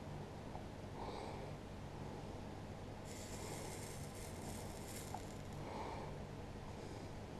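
A person breathing heavily through the nose close to the microphone: soft breaths about a second in and again near six seconds, with a longer hissing intake a few seconds in. A low steady hum sits underneath.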